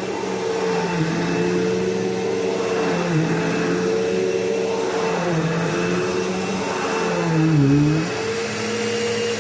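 Bissell PowerForce bagless upright vacuum cleaner running, its motor tone steady but dipping briefly in pitch several times, most deeply just before the end.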